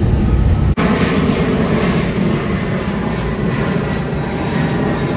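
Jet airliner engines rumbling overhead. Under a second in, the sound cuts off abruptly and another passing jet's broader, steady roar takes over.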